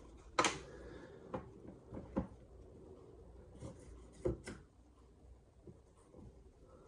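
A few light, scattered knocks and clicks as sharpening gear is handled and set down on a work surface, with quiet gaps between them.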